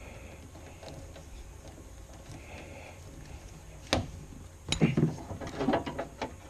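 Hand-handling noises while working on door wiring: a single sharp click about four seconds in, then a run of rustling and knocking near the end.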